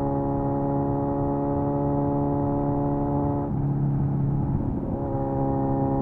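Kawasaki Z900's 948cc inline four-cylinder engine through an SC Project exhaust, running at a steady engine speed while riding. The note breaks up for about a second and a half just past halfway, then settles back to the same steady tone.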